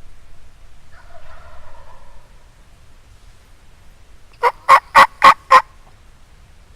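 Turkey calling: a fainter pitched call about a second in, then a run of five loud, evenly spaced notes at about four a second.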